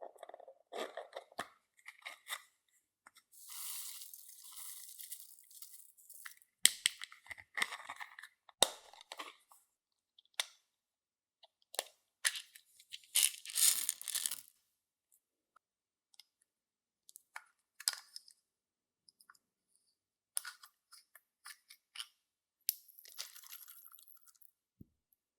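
Clear slime being worked by hand with makeup mixed in: irregular crackles, clicks and crunches. A longer hissing rustle comes about three seconds in, and a dense run of crackling about halfway through.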